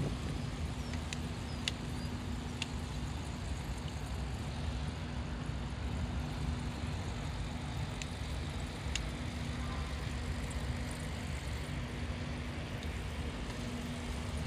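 Small-wheeled bicycle rolling steadily over brick paving: a continuous low rumble with a steady hum under it and a few light ticks.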